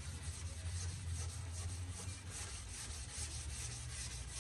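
Wet-sanding glazing putty on a car fender by hand: 320-grit sandpaper on a rubber sanding block scrubbed back and forth in quick, even strokes, over a steady low hum.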